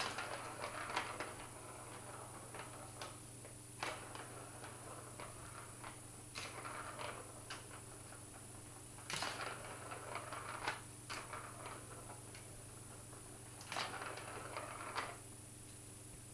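Plastic ball rattling and rolling around the tube of a Catit Senses Play Circuit track as kittens bat at it, with irregular clicks and knocks in several short spells.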